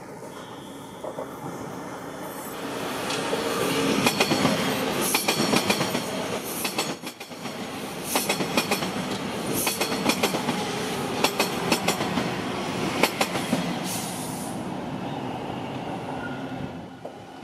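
A Toronto TTC subway train passing, wheels clacking over rail joints with brief high squeals. It builds up about two seconds in, stays loud for about ten seconds, and dies away near the end.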